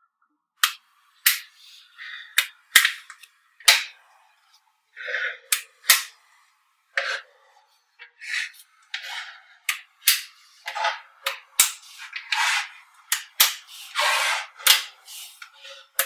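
Small magnetic balls clicking sharply as slabs of them snap together. The clicks come irregularly, one or two a second, with short rattling and scraping as the balls are slid and pressed into place.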